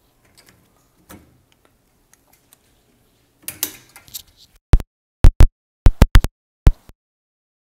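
Microphone handling noise: mostly quiet, a brief rustle about three and a half seconds in, then a run of about nine sharp, very loud knocks over the last three seconds.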